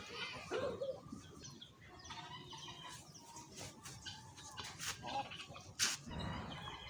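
Chickens clucking and chirping in scattered short calls, with one sharp, loud noise a little before the end.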